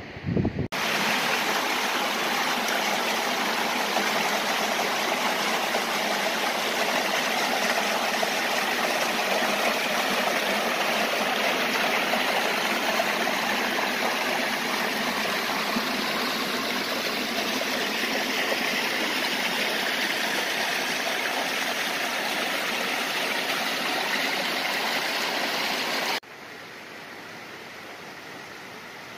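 Creek water rushing down a small cascade over granite, a loud, steady rush. About 26 s in it cuts to the softer, steady flow of a creek running among boulders.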